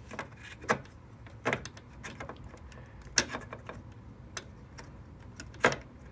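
Irregular clicks and taps of hands working a DDR4 memory stick into a desktop motherboard's memory slot and its latches, with four sharper clicks standing out.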